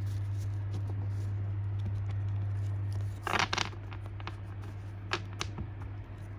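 Foil wrapper of a Pokémon card booster pack being torn open and crinkled about halfway through, followed by a few short crinkles. A steady low hum runs underneath for the first three seconds or so.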